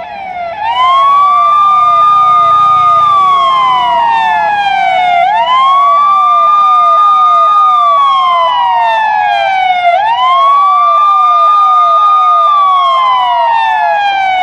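Police car siren: a wail that climbs quickly, holds high, then falls slowly, repeating about every five seconds, layered over a rapid falling yelp of about three chirps a second. It swells to full loudness within the first second.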